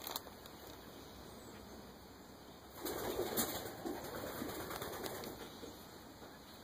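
Wings of a flock of pigeons flapping and fluttering as they pass overhead, swelling about three seconds in and fading away over the next two seconds.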